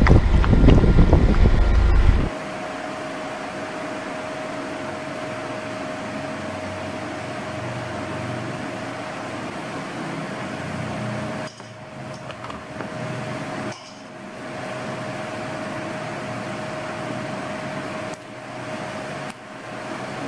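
For about the first two seconds, a loud low rumble of wind on the microphone. Then a steady fan-like ventilation hum with a faint steady tone in it, broken twice by short drops.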